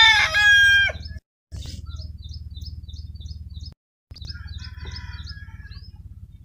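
A bird chirping over and over in short high calls, about four a second, over a steady low hum. A voice trails off in the first second, and the sound cuts out completely twice for a fraction of a second.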